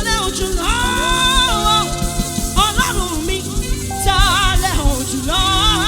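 Yoruba gospel band music: a lead melody of long held notes with wide vibrato over steady sustained chords and bass.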